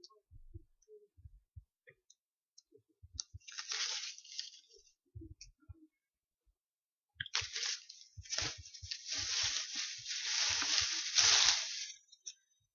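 Close rustling and crinkling of artificial flowers being handled, with soft knocks. It comes in two stretches: a short one about three seconds in and a longer, louder one from about seven seconds in until shortly before the end.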